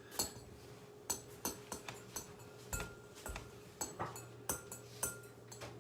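Kitchen clatter: a string of light knocks and clinks as containers and dishes are handled and set down on a counter, a few of them ringing briefly like glass or crockery, over a faint steady hum.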